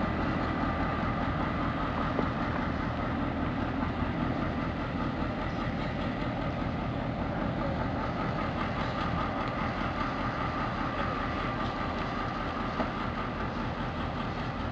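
DBR-class diesel locomotive's V8 EMD 645 two-stroke engine running steadily at low throttle as the locomotive moves slowly away, with a steady high whine over the engine note. It fades slightly as the locomotive draws off.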